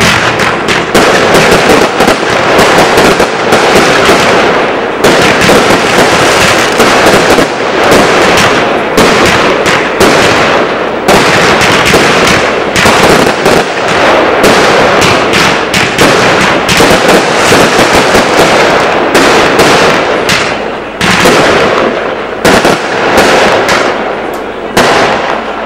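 Fireworks firing in a rapid, continuous barrage: launches and bursting shells crack in quick succession. They thin out near the end.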